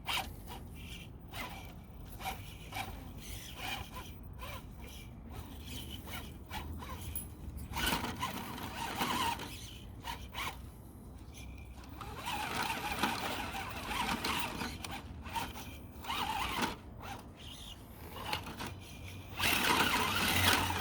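Stock Axial SCX10 II Deadbolt RC crawler's electric motor and drivetrain whirring in stop-start bursts of throttle as it labours up a steep, difficult climb. The bursts are longest in the middle and near the end.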